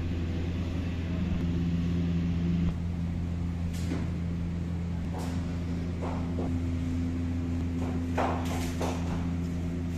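Steady low mechanical hum of room machinery with a few steady tones in it, one shifting pitch a few seconds in. A few short clatters break in from about four seconds in, several close together near the end.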